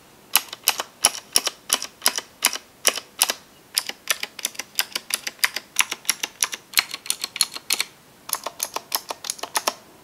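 The stabilized keys of an IKBC CD87 mechanical keyboard with Cherry MX Blue switches pressed one after another as a stabilizer sound test, each keystroke a sharp clicky clack. About three keystrokes a second, with a short pause a little after eight seconds in.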